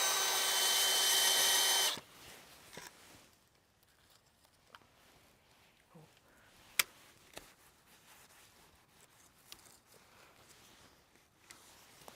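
Cordless drill spinning a Power Planter garden auger into mulched soil: a steady motor whine for about two seconds that cuts off suddenly. After it come only faint rustles and a few light clicks.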